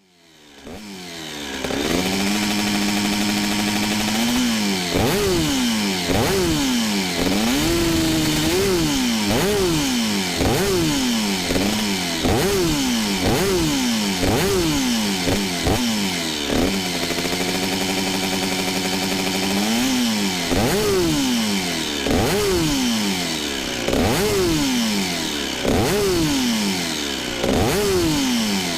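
Husqvarna SMR 125's single-cylinder two-stroke engine idling, then blipped over and over, about one rev a second, each rising sharply and dropping back. It settles to a steady idle for a few seconds midway and is then revved again the same way.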